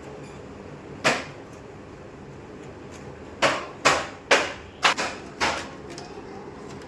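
Sharp knocks on a laptop's plastic casing as it is put back together: one about a second in, then a quick run of five, about two a second.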